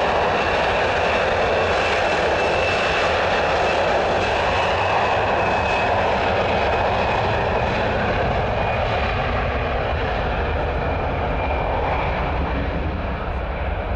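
Twin jet engines of an Airbus A320-family airliner running as it rolls along the runway: a steady rush with a thin high whine, easing off slightly near the end.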